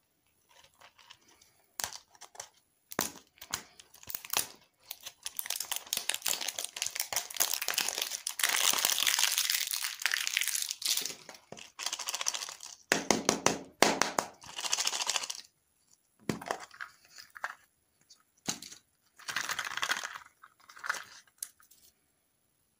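Thin clear plastic wrapper crinkling and tearing as it is pulled off a lollipop toy ball, in an irregular run of crackles that is densest in the middle and breaks into shorter bursts later on.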